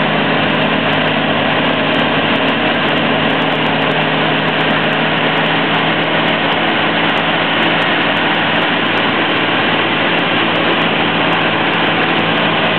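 Ultralight aircraft's piston engine and propeller running steadily under heavy airflow rush, heard from inside the cockpit in a steep high-speed dive.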